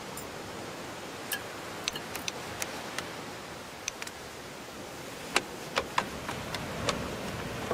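Steady hiss with scattered light ticks and taps at irregular intervals, coming more often in the second half.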